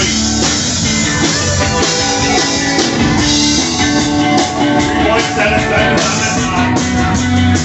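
Live rock band playing a song: drum kit, electric guitar and keytar, heard loud and close to the stage.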